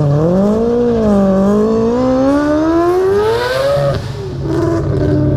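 Turbocharged 26B four-rotor rotary engine in a Mazda RX-7 accelerating hard, its pitch climbing steadily for about four seconds before falling off as the throttle lifts.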